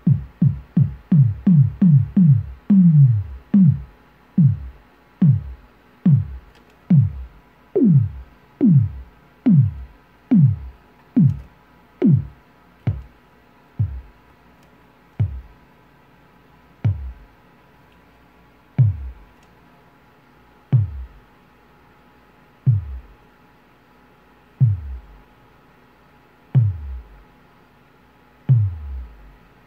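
Synthesized kick drum from a Eurorack modular synth, made with a Ripples filter (VCF) driven by a Tides looping envelope: low hits, each a quick downward pitch sweep. The hits run at about four a second at first, then slow to about one a second, and the height and length of each sweep keep changing.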